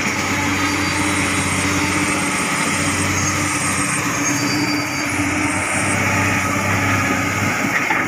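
Komatsu hydraulic excavator's diesel engine running steadily at a constant level while the machine works, with a low hum.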